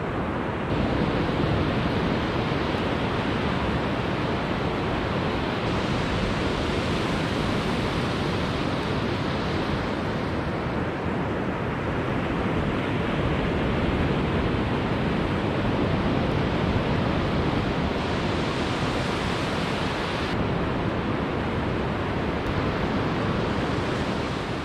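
Ocean surf breaking on a sandy beach, mixed with wind rushing over the microphone: a steady roar of noise that swells and eases slowly over several seconds.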